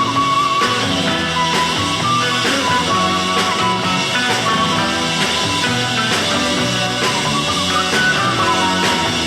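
A 1960s Japanese group-sounds rock band playing live during an instrumental break. A high lead melody with sliding notes runs over a moving bass line and a steady beat of about two strokes a second.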